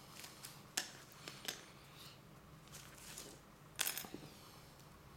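Small plastic model kit parts clicking and tapping as they are handled and set down on a cutting mat, a few light clicks in the first two seconds and a louder clatter about four seconds in.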